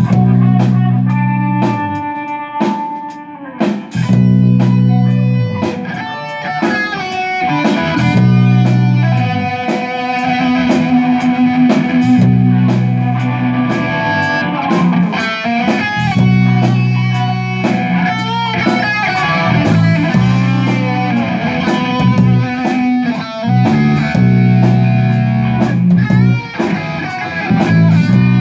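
Rock band playing live without vocals: electric guitars over a drum kit, with heavy low chords held in repeated stretches of about two seconds and a higher guitar line with gliding, bent notes.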